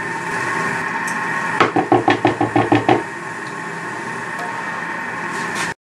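A large spoon knocking quickly against a roasting dish, about eight sharp taps in just over a second, over a steady kitchen hum. The sound cuts off abruptly near the end.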